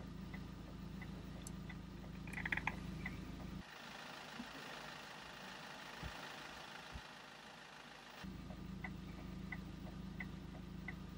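A car engine idles steadily inside the cabin while the indicator relay ticks at a steady pace, about one click every 0.7 s, with a brief rattle of louder clicks about two and a half seconds in. Around three and a half seconds the idle and ticking give way to a steady outdoor hiss with two low thumps, and they return about eight seconds in.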